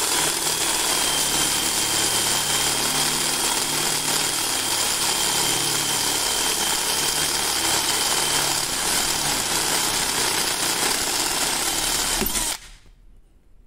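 Bosch GSR 120-LI 12 V cordless drill in second gear running steadily under load as an 8 mm cobalt bit bores through steel, widening a 3 mm pilot hole. A thin steady whine runs through it, and the drill stops suddenly near the end as the hole goes through.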